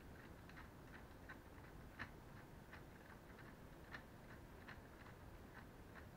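Near silence with faint, irregular small clicks, two or three a second, a slightly louder one about two seconds in and another about four seconds in.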